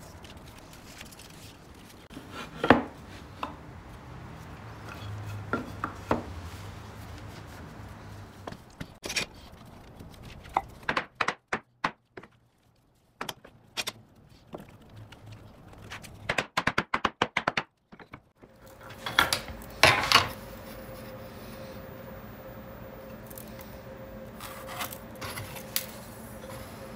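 Wooden knocks, taps and rubbing as pieces of wood are handled, with short runs of quick clicks and two loud knocks, one near the start and one about two-thirds in. From about two-thirds in, a faint steady hum sits underneath.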